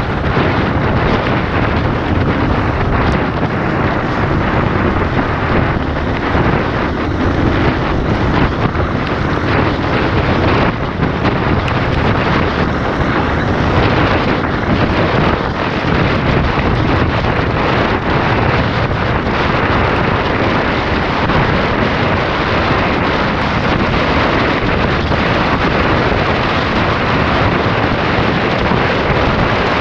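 Steady wind rush buffeting the microphone on a moving dirt bike, with the bike's engine running underneath.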